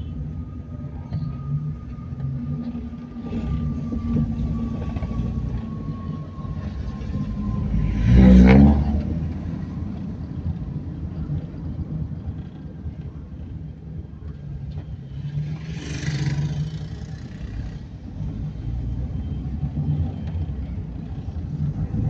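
Inside a moving car: steady low engine and road rumble as it drives slowly through town. A brief loud burst about eight seconds in and a softer rush around sixteen seconds stand out from it.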